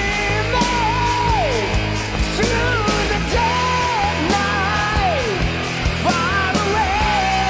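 Rock song: a singer holds three long sung lines, each falling away at its end, over a full band with drums and regular cymbal hits.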